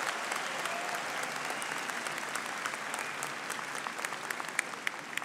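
Audience applauding, many hands clapping steadily and easing off slightly near the end.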